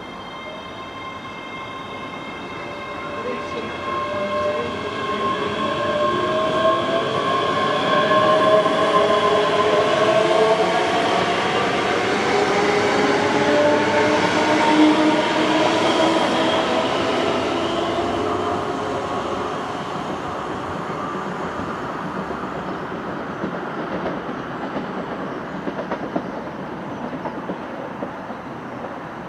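ScotRail Class 385 electric multiple unit running past on the platform line. Its traction motors whine in several tones, some gliding in pitch, over the rumble and clatter of wheels on the rails. The sound builds over several seconds, is loudest in the middle, then fades away.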